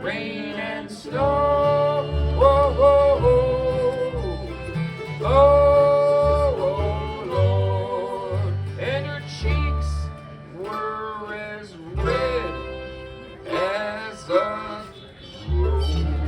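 Bluegrass band playing an instrumental passage: held, sliding lead notes over strummed guitar and a steady bass line.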